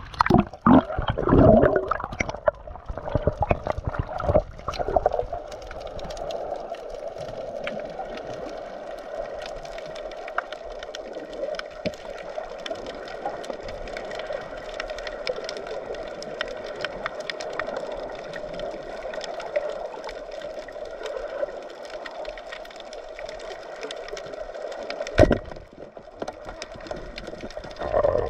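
Water splashing and bubbling around a freediver going under. Then comes a steady underwater hiss full of fine crackling ticks, broken by a single sharp knock about 25 seconds in. Splashing returns at the very end.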